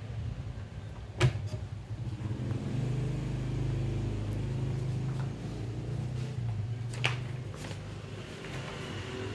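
Ricoh MP 6054 copier: the lower cabinet door shuts with a sharp clack about a second in. Then the machine runs with a steady low hum, and there is another click near seven seconds.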